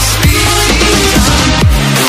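Electronic dance music with a deep kick drum that drops in pitch on each stroke, over sustained bass notes.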